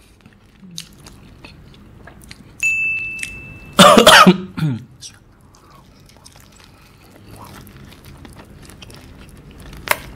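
A man coughs hard about four seconds in, the loudest sound, a second after a brief high whistling squeal, while eating fried chicken coated in fiery Samyang sauce. Faint wet chewing clicks go on around it.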